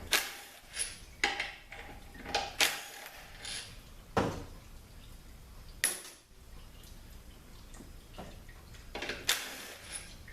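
Scattered sharp metal clinks and clatter of tools and bolts as the valve body bolts are taken out of a THM-350 automatic transmission, some clinks ringing briefly.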